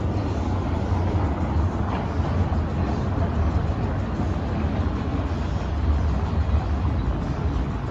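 Street traffic with a heritage streetcar approaching along the avenue: a steady low rumble with no distinct events.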